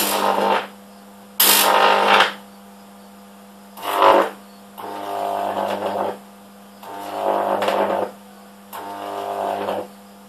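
Stacked microwave-oven-transformer high-voltage supply switched on and off in bursts, each a loud electric buzz. The first two bursts, at the start and about a second and a half in, are the loudest, with the crackle of a high-voltage arc. Four shorter, quieter buzzing bursts follow, over a steady low mains hum.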